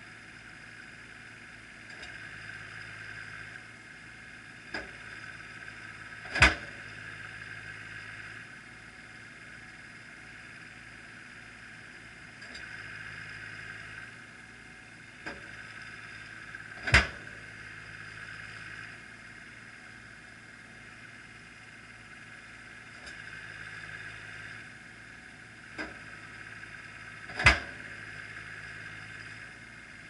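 Accelerated weight drop seismic source on a tracked carrier striking the ground three times, about ten seconds apart, each strike a shot for seismic data acquisition. Each loud, sharp thud comes a second or two after a lighter click. The machine's running note rises a few seconds before each strike and falls back after it.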